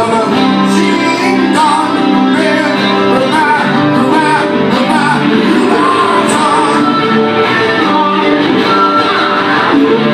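Two acoustic guitars playing together live, picked melody notes over strummed chords.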